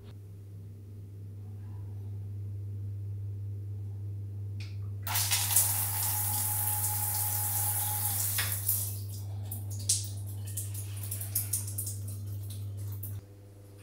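Handheld shower head turned on, spraying water onto tile with a steady hiss for about three seconds before it shuts off. Water then drips and splashes irregularly, over a steady low hum.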